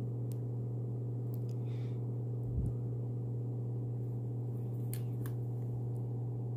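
A steady low hum with a few faint ticks as the stamper is handled, and one soft bump about two and a half seconds in.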